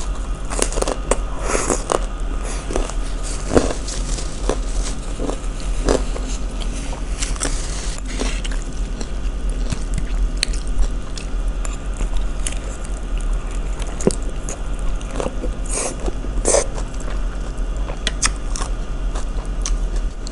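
Close-miked eating: irregular, sharp crunches as crisp kerupuk crackers and vegetable salad in peanut sauce are bitten and chewed.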